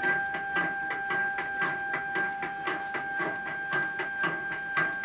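NEMA 34 stepper motor of a DIY milling-machine table power feed running at raised speed: a steady whine with a fast, regular rattle, several clicks a second, which the owner puts down mainly to the handwheel handles on the end of the leadscrew rattling.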